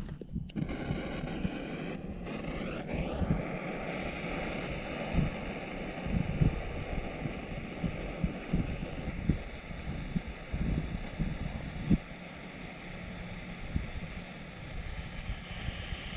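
Wind buffeting the microphone: a steady noisy rush with irregular low thumps from the gusts.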